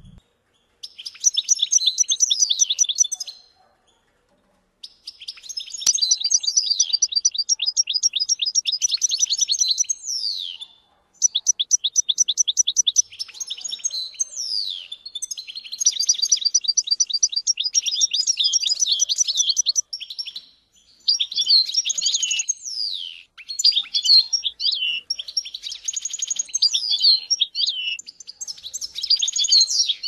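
European goldfinch singing: long phrases of fast, high trills and chirps, broken by short pauses.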